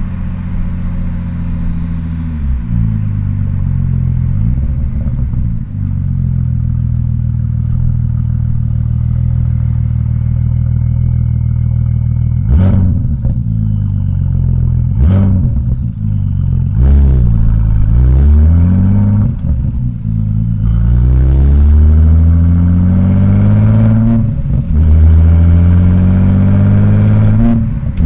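Audi S4 B5's twin-turbo V6 pulling through the gears in gentle driving, its note rising and falling with each gear. Several short sharp bursts come at the changes midway through, and a high turbo whine climbs in the later part before dropping away near the end.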